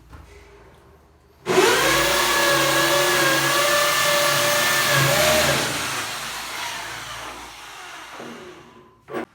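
A motor-driven machine starts suddenly, runs steadily with a whining hum for about four seconds, then winds down and fades out. A short click comes near the end.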